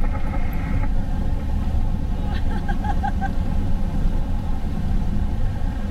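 Steady rush of airflow and low rumble inside a glider cockpit during aerobatic manoeuvres. About halfway through comes a brief run of short, evenly spaced high tones.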